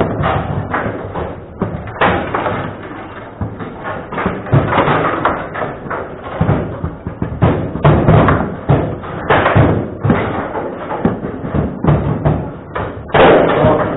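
Table football in play: irregular sharp knocks and thuds as the ball is struck by the rod figures and bounces off the table walls.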